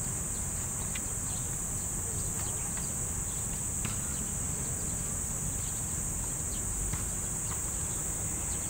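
A steady, high-pitched insect drone, with a low rumble of traffic and wind beneath it.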